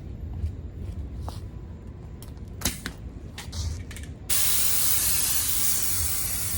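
A few light clicks and knocks, then about four seconds in an air blower starts suddenly and runs as a loud, steady rush of hissing air.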